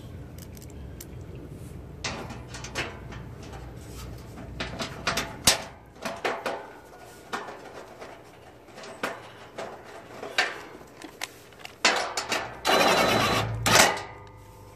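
A riding mower's hood side panel being handled and fitted: irregular clicks, knocks and rattles as it is pushed into place, ending with a dense burst of louder knocking and rattling about a second long.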